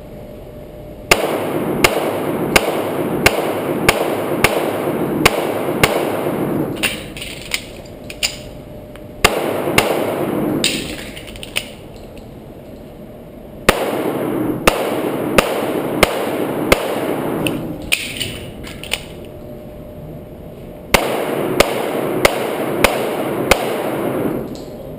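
Taurus PT1911 .45 ACP pistol firing a practical-pistol stage: strings of rapid, sharp shots, about two a second, in four groups broken by pauses of a few seconds.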